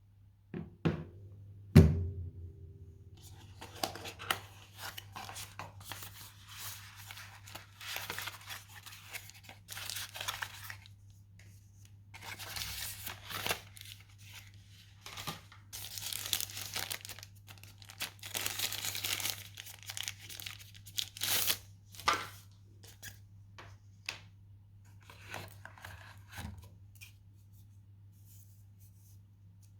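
Smartphone box packaging handled and torn open by hand: a sharp knock about two seconds in, then repeated irregular bursts of tearing and crinkling plastic and paper.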